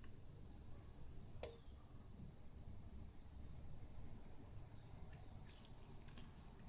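A single sharp click about a second and a half in, then a few faint light ticks near the end, over a quiet, steady, high-pitched whine.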